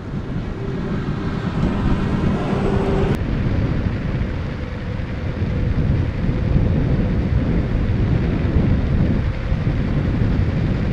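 Backfire Ranger X1 electric skateboard's rubber tires rolling on pavement, a continuous rumble mixed with wind on the microphone. A steady whine is heard through the first three seconds. The rear tires keep the rubbing, scrubbing noise typical of this board, while the new front tires no longer scrub.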